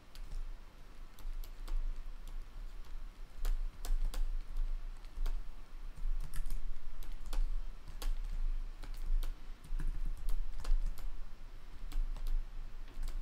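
Scattered, irregular clicks and taps from a computer keyboard and mouse, about one or two a second, over a steady low hum.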